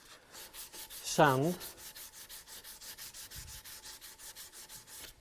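Sandpaper rubbed back and forth on wood by hand in quick, even strokes, about five a second.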